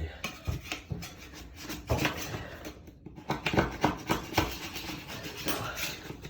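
Irregular scraping and rubbing strokes as old toilet wax is cleared off the floor around the drain flange.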